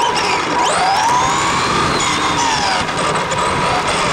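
RC car's motor and drivetrain whining close up as it drives, the pitch rising and falling as it speeds up and slows, over a steady rush of tyre and gear noise.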